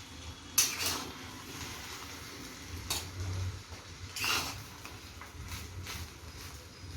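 A metal utensil scraping and knocking against an iron kadhai while rice is stirred and mixed, with a few sharp scrapes about half a second in, near three seconds and a little after four seconds.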